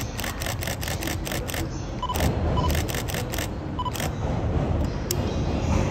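Rapid camera shutter clicks, about five a second, thinning to single clicks after about two seconds, over the low rumble of an electric train pulling into the station. Three short beeps sound about two, two and a half and four seconds in.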